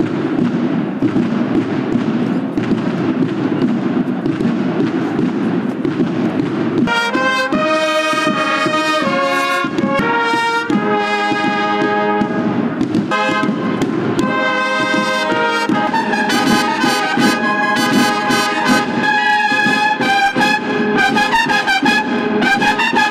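A Holy Week brotherhood band's bugles and trumpets playing a march. For about the first seven seconds there is only a dense, noisy rumble with no clear notes. Then the brass enters in short phrases of held notes and plays on without a break from about sixteen seconds in.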